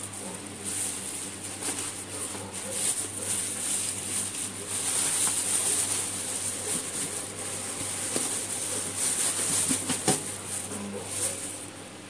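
Plastic carrier bag rustling and crinkling as raw chicken pieces are tipped and scraped into it from a metal tray, with a few sharp knocks, the clearest about ten seconds in.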